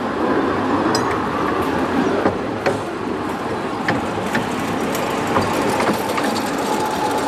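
A 15-inch gauge diesel locomotive hauling a train approaches and draws alongside on the next track, its running noise and wheels on the rails steady with scattered clicks and knocks. About five seconds in, a steady whine from the locomotive appears as it comes level.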